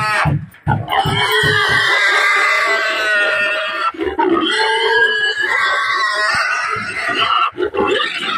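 Domestic pig squealing in distress while trussed to a carrying pole and handled into a metal cage: loud, long, high-pitched squeals, nearly unbroken from about a second in.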